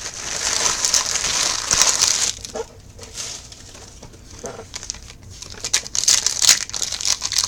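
Plastic card packaging crinkling and tearing as a box of 2016 Donruss baseball card packs is opened. It is dense for about two seconds, goes quieter with scattered crackles, then picks up again near the end.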